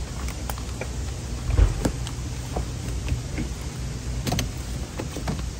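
Scattered light clicks and knocks of a wiring harness cable and plastic trim being handled and pressed into place in a car's door sill, with a louder thump about a second and a half in, over a steady low hum.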